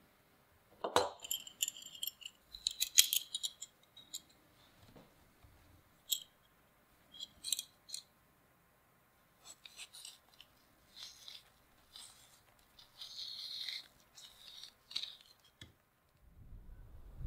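A folding pocket knife peeling an apple: short, crisp scraping and cutting sounds of the blade through the skin and flesh, in irregular bursts with pauses, beginning with a sharper knock about a second in. A low rumble starts near the end.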